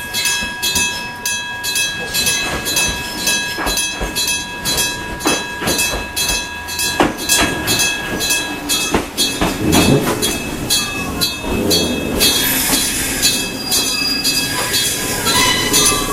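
Railway level crossing's electric gong (denshō) striking steadily, about two to three strokes a second, while a train passes over the crossing with a rumble around the middle and a high-pitched hiss of wheels near the end.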